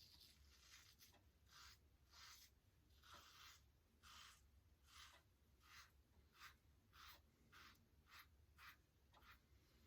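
Rockwell 6S safety razor scraping through lathered stubble in short, faint, regular strokes, about two a second, on the final against-the-grain pass.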